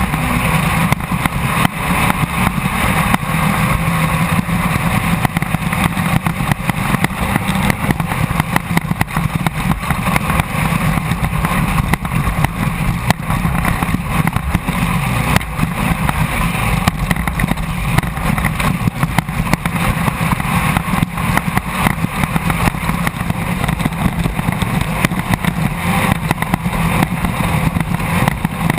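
Onboard sound of a Class 1600 off-road race car at speed: its air-cooled 1600 cc VW flat-four engine running hard and steady, under a constant clatter of knocks and rattles.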